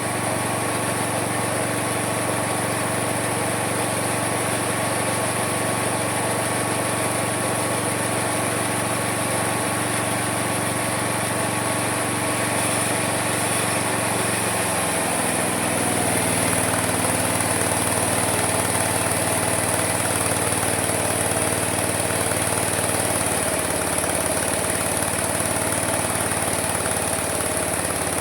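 Homemade mini sawmill's motor running steadily with a machine drone. Its pitch drops about halfway through and dips again near the end.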